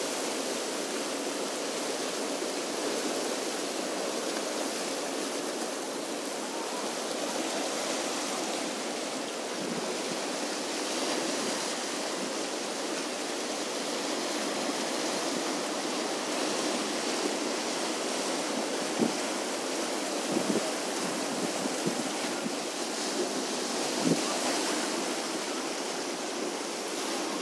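Small sea waves washing and breaking over shoreline rocks: a steady rushing wash, with a few brief sharp taps in the second half.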